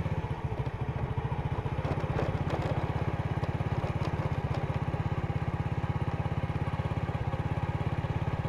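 Small motorcycle engine running at a steady speed while riding, with a rapid even pulsing and a few light clicks about two to four seconds in.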